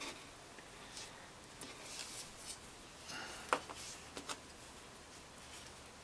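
Faint rustling and light clicks of hands handling and pressing a clay sculpture, with a sharper tap about three and a half seconds in.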